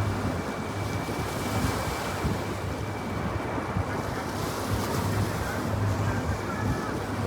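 Steady outdoor city ambience: an even wash of noise with a low steady hum underneath and a faint thin high tone.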